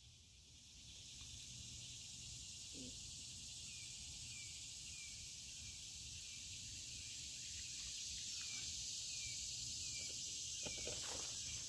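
Steady high-pitched insect chorus droning without a break, over a low rumble. A few short rustling knocks come near the end.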